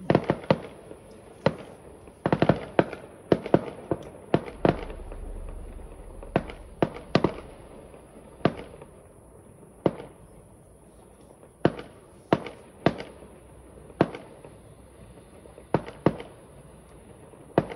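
Fireworks display bursting: a string of sharp bangs, a quick cluster a couple of seconds in, then single reports about every second, each dying away in a short tail.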